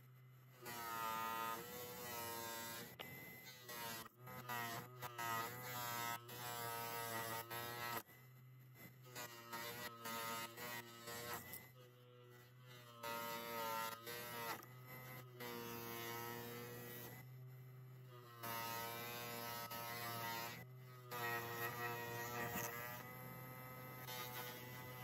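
Electric motor driving a wire wheel, with a steady hum, while the metal arc of a compass protractor is pressed against the spinning wire wheel in repeated passes of a few seconds each, giving a louder buzzing whine during each pass.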